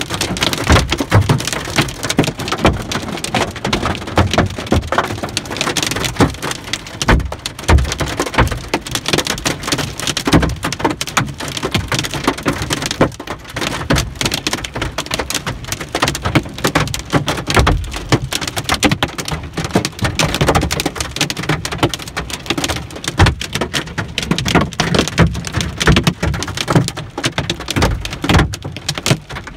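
Hailstones pelting a truck's roof and windshield, heard from inside the cab: a loud, dense, unbroken clatter of hits with no let-up.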